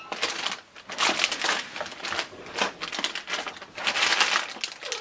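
Toy packaging being handled and moved about: a run of irregular rustling and crinkling scrapes.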